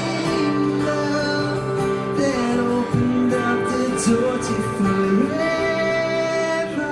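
Music: a worship song with singing over guitar.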